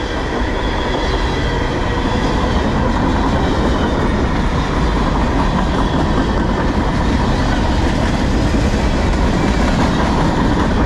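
Freight train tank cars and boxcars rolling past close by: a steady, loud rumble of steel wheels on rail, with a faint ringing whine above it.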